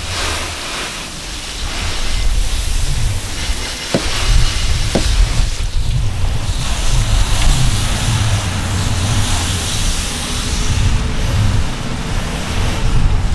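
Garden hose spray nozzle rinsing a car: a steady hiss of water spraying onto the windshield and bodywork, with uneven wind rumble on the microphone underneath.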